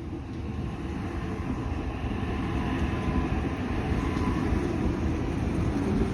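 Electric Sydney passenger train running by on the rails, a steady rumble that builds louder over the first couple of seconds, with no horn sounding.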